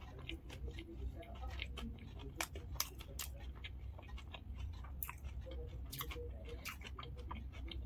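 A mouthful of dahi puri chewed close to the microphone: the crisp puri shells crunch in many irregular sharp crackles.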